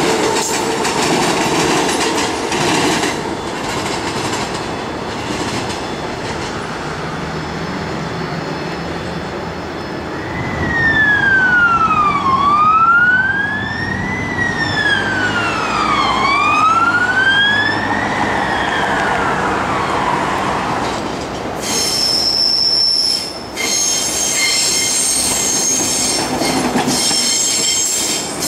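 Transperth A-series electric train running past on the rails. About ten seconds in, a fire engine's siren wails, sweeping down and up in pitch about every two seconds for some ten seconds. Near the end comes high-pitched squealing of train wheels on the rails.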